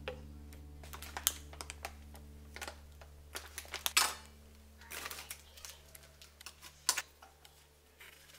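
Light clicks and taps of metal tongs and kitchen utensils against a ceramic plate and mug as food is set out, scattered irregularly, with a louder clack about four seconds in and another near seven seconds.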